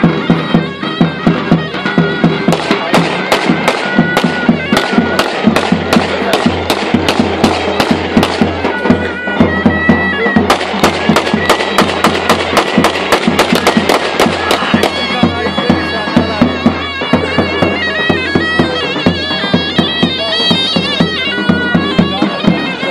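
Davul and zurna wedding music: the shrill double-reed zurna playing a wavering folk melody over regular beats of the davul bass drum.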